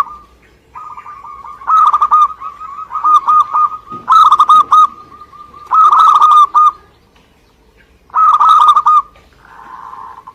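Zebra dove (perkutut) singing: about five loud phrases of rapid, bubbling cooing notes, linked by a softer sustained coo, with a quieter, hoarser phrase near the end.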